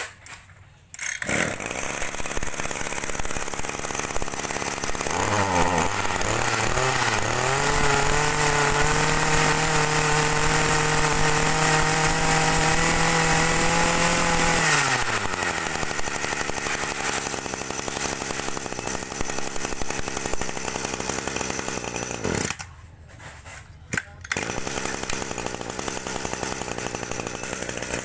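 Small two-stroke brush cutter engine starting up about a second in and running at idle. It is revved to a steady high speed for about seven seconds, then let back down to idle. Near the end the sound breaks off for about two seconds, then the idle returns.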